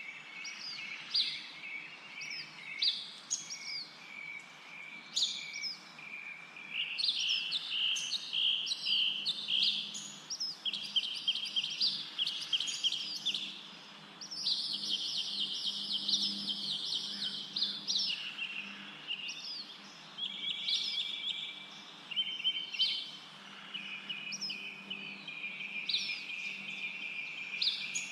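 Birds chirping and twittering, many short calls and rapid trills overlapping throughout, with busier stretches around the middle.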